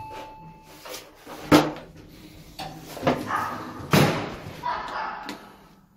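Two sharp bangs about two and a half seconds apart, slam-like impacts from handling doors and parcels during a delivery, with a short beep near the start and brief faint voices.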